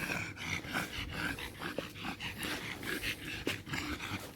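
A dog whining in short high notes, mixed with a run of small clicks and scuffs.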